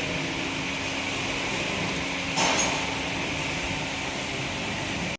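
A single short tool knock about two and a half seconds in, from work on the pump controller's terminal block as a wire is fastened in, over a steady hissing background noise.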